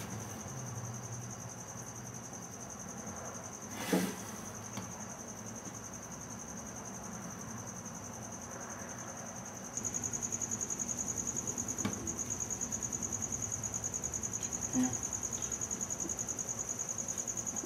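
An insect's high, fast-pulsing trill, holding a steady pitch and growing louder about ten seconds in. A single light knock about four seconds in.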